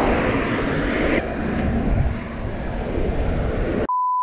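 Cars passing close by on a road, a steady rushing noise. Near the end it cuts out for a steady high censor beep covering a swear word.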